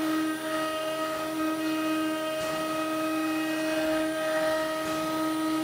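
Automatic tool-change CNC router spindle running as it engraves wood: a steady whine made of several held tones.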